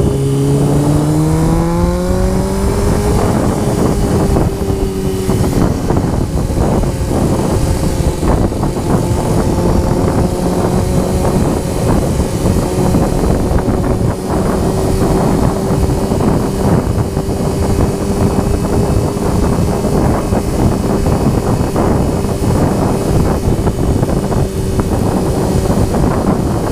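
Honda CBR sport bike engine pulling up through the revs for about the first three seconds, then holding a steady cruising note. Heavy wind buffeting on the microphone runs under it.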